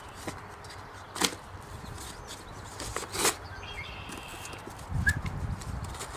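Survive! Knives GSO-10 knife blade sawing and slicing through thick double-ply corrugated cardboard, with two sharp loud cutting strokes about a second and three seconds in. Hard going for the thick blade, which is struggling through the cardboard. A low rumble follows near the end.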